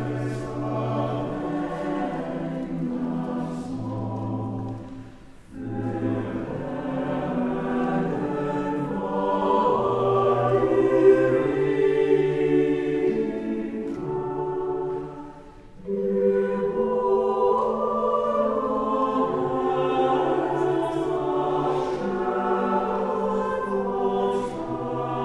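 Mixed choir singing a Swedish hymn setting in sustained chords, breaking off briefly between phrases about five seconds in and again about fifteen seconds in.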